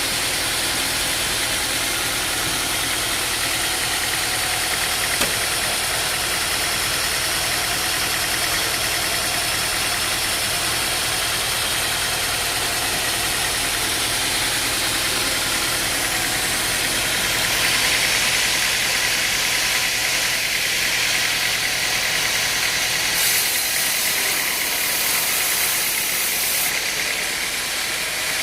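Engine-driven machinery running steadily. A harsher, hissing noise rises over it about two-thirds of the way through.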